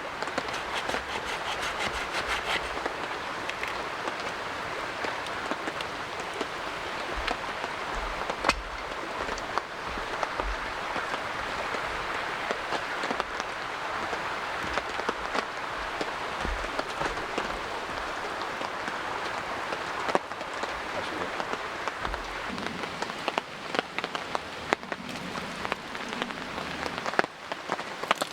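Steady light rain falling, a constant even hiss with scattered sharp ticks of single drops.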